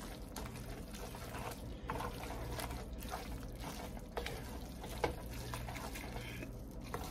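Spaghetti in a creamy carbonara sauce stirred in a nonstick skillet with a slotted spatula, with pasta water poured in from a glass measuring cup. The wet noodles slosh, and the utensil clicks against the pan a few times.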